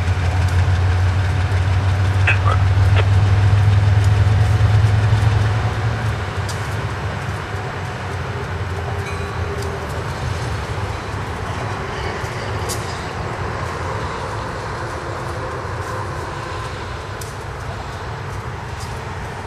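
GE U23B diesel-electric locomotive's twelve-cylinder engine running with a deep, steady rumble, loud for the first five seconds or so and then easing down to a lower, even level.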